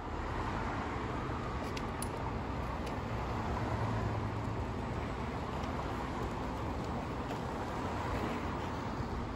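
Steady hum of road traffic, an even rumble that holds at one level throughout.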